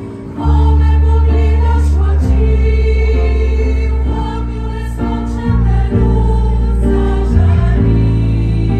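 Women's choir singing in harmony through microphones, the full sound coming in about half a second in, over deep sustained low notes.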